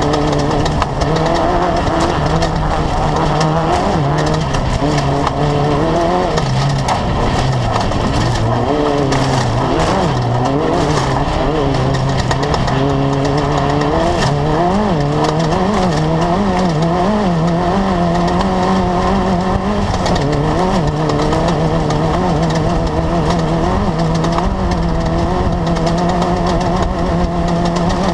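Class 10 off-road race buggy's engine running hard, its pitch rising and falling again and again with the throttle, with quick up-and-down wobbles midway and a steadier high pitch near the end. Under it runs a constant rough rushing and rattling noise.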